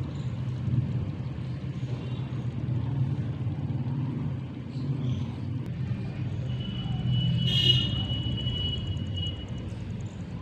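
Soaked lumps of fuller's earth (multani mitti) squeezed and broken apart by hand in a bowl of water, over a steady low rumble. A steady high tone sounds for about three seconds past the middle.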